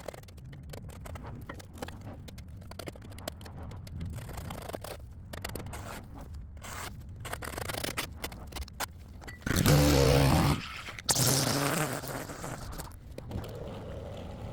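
Repeated irregular scraping strokes, like a tool scraping dirt and debris off a concrete sidewalk. About two thirds of the way in, a small engine briefly runs up twice with a steady hum.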